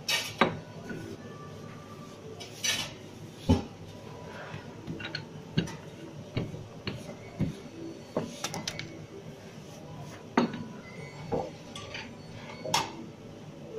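Irregular knocks and clatter of a wooden rolling pin on a granite counter as pizza dough is rolled out, with a metal pan and ladle clinking near the end.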